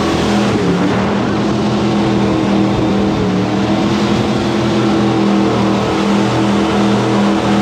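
Jet boat's engine running at speed, its pitch rising and falling with the throttle.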